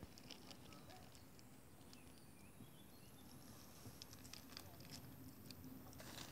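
Faint, irregular wet clicks and smacks of two Argentine black-and-white tegus biting and chewing raw minced meat.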